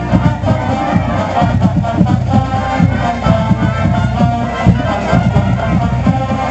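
Marching band playing loudly: brass holding notes over a steady pounding of drums.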